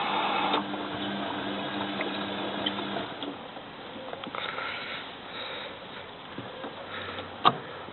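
Tricity Bendix AW440 washing machine in the cool-down stage of a 95° boilwash: a steady hiss with a hum stops about half a second in, a low steady motor hum carries on for a couple of seconds more and fades, then only quieter rattles and a single sharp click near the end.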